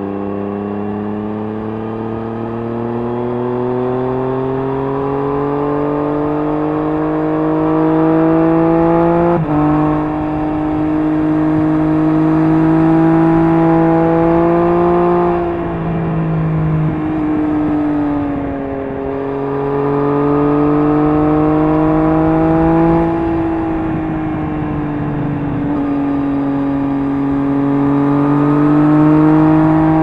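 Triumph Street Triple S inline-three engine heard through an SC-Project SC1-R slip-on exhaust with its dB killer fitted, pulling up through the revs under acceleration. There is a sharp gear change about nine seconds in, then the bike rolls off and picks up again twice, with a rising and falling engine note over a steady rush of wind.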